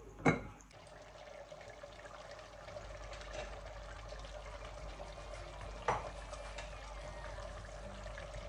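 A glass pot lid clacks against a stainless steel pot as it is lifted off. After that the meat and tomato sauce simmer in the open pot with a soft steady bubbling hiss and a steady hum, broken by one more sharp knock about six seconds in.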